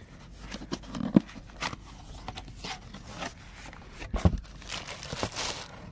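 Cardboard shipping box being opened by hand: scattered clicks and scrapes as the tab and flaps are pulled, then a stretch of crinkling from the plastic bag inside, about five seconds in.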